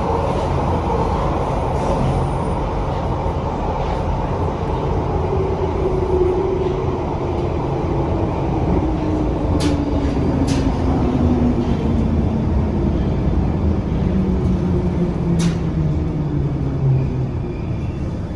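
London Underground Bakerloo line 1972 Stock train running, its motor whine falling steadily in pitch over a steady rumble as the train slows. A few sharp clicks come from the wheels and track.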